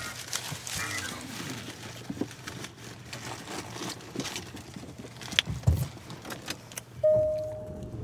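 Close-miked small clicks and rustles of eating and handling food, with a sharper cluster of clicks about five and a half seconds in. Near the end a steady electronic tone begins.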